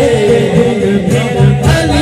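Male vocalist singing a Punjabi devotional naat into a microphone. He holds a long note that slides down, over a low accompaniment pulsing about twice a second.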